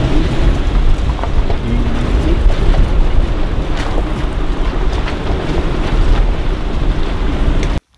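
Toyota Land Cruiser driving over a rough, rocky dirt track: a loud steady low rumble of tyres and running gear with scattered knocks and rattles as it rolls over rocks. It cuts off suddenly near the end.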